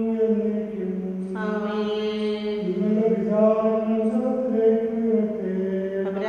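A man's voice chanting a liturgical prayer in long held notes that step slowly up and down in pitch.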